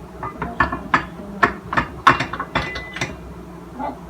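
A run of sharp, ratchet-like mechanical clicks from a small hand-worked kitchen tool, about eight clicks a few tenths of a second apart, stopping about three seconds in.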